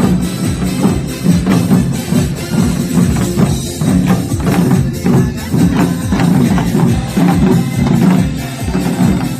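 Janggu (Korean hourglass drums) beaten in a fast, steady rhythm along with an upbeat recorded pop dance song.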